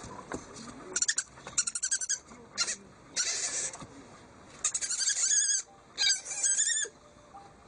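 A small owl gives a series of high-pitched chittering calls in short bursts as its head is scratched by hand. Several of the later calls waver in a quavering trill.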